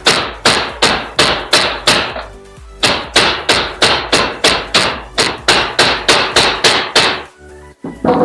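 Rapid hammer blows, about three a second, with a short break a little after two seconds in, then another long run, knocking a roll-bar mount into place on a pickup's bed rail. Background music plays underneath.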